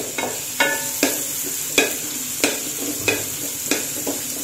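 Chopped green beans sizzling in hot oil in a metal pan, with a steady hiss, while a wooden spatula stirs them. The spatula scrapes and knocks against the pan about seven times, some strokes with a brief metallic ring.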